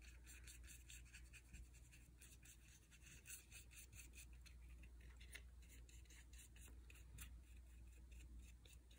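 Faint scratching of a paintbrush dabbing and scrubbing paint onto a paper-pulp egg carton cup, many quick, irregular light strokes, over a low steady hum.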